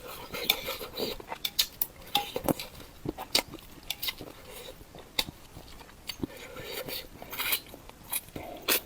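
Close-miked eating of spicy mala bullfrog: many sharp, irregular clicks and crunches of biting and chewing, with the odd clink of utensils.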